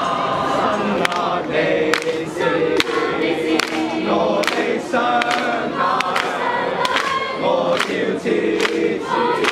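A mixed group of carollers singing a Christmas carol together, with hand claps on the beat a little more than once a second.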